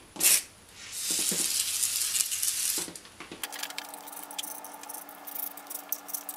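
Aerosol degreaser spraying: a short spurt, then a steady hiss of about two seconds. After that, light clicks and rattles over a faint steady hum.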